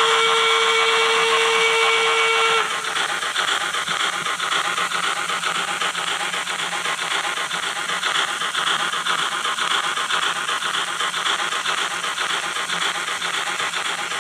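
A Fleischmann BR 86 model steam locomotive's sound decoder plays through its on-board loudspeaker. The locomotive whistle sounds as one steady tone until about two and a half seconds in, then exhaust chuffing and hiss run on as the model drives. The sound is set too loud and comes out distorted.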